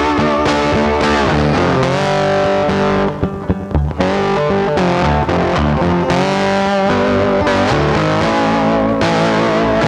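Background music led by a distorted electric guitar.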